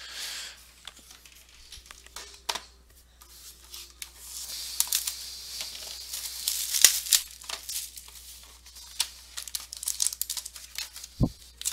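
Packaging being torn open and crinkled while trading cards and their box are handled, with many sharp clicks and rustles, busiest in the middle. A short dull thump comes near the end.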